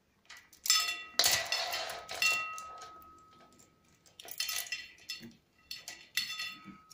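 Metal clinks and knocks from a bicycle rear cassette, chain and add-on gear pair being turned by hand: several sharp strikes, a few leaving a short ringing tone.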